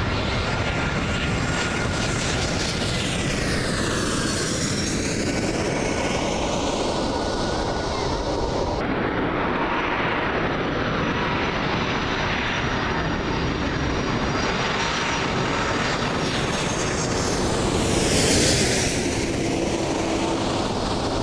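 Jet airliners on final approach passing low overhead, with a loud, steady engine roar and high whining tones. The tone sweeps as each plane passes over. An abrupt cut about nine seconds in leads to a second pass, which is loudest near the end.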